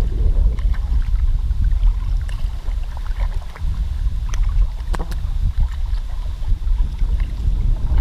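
Wind buffeting the microphone with a heavy low rumble while floating on a river, with a few light knocks and splashes of water scattered through, the clearest about halfway.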